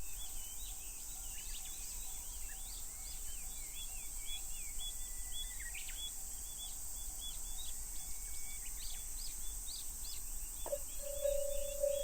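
Birds chirping over a steady high hiss and a low rumble. Near the end a railway level-crossing warning bell starts ringing, a steady tone repeating in quick even pulses.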